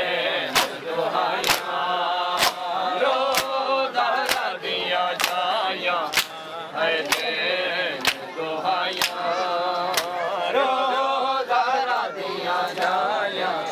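Matam: a crowd of men slapping their bare chests in unison, about once a second, while male voices chant a mourning lament.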